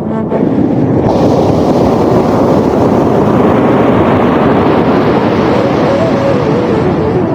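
Sea waves rushing and washing, with a wave surging up about a second in and staying full. Soft music runs faintly underneath.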